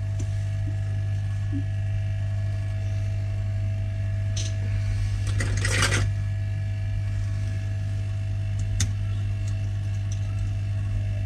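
Steady low hum with faint steady tones above it. A few small clicks and a brief rustle about halfway through come from small parts being handled.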